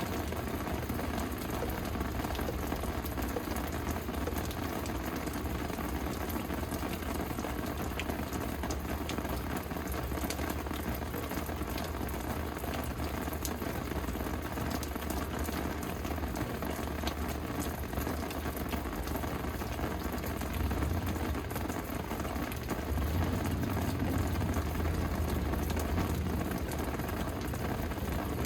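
Steady rain falling, with single drops ticking against a constant patter. A low rumble grows a little louder in the last few seconds.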